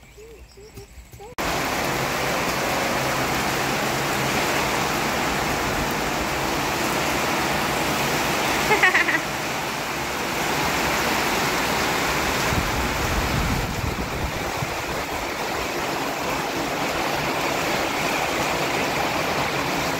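Heavy rain pouring down, a steady dense hiss that sets in abruptly about a second and a half in. About nine seconds in, a brief high-pitched cry rises over it.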